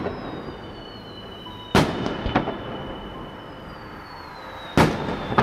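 Aerial firework shells bursting: a sharp boom about two seconds in and another near the end, each followed by a smaller crack, with thin high whistles falling slowly in pitch between them.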